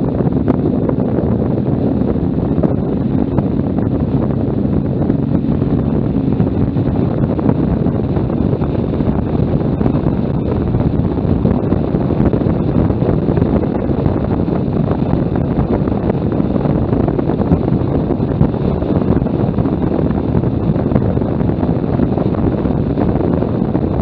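Loud, steady wind rush buffeting the microphone of a camera on a motorcycle moving at road speed, with the motorcycle's engine running underneath.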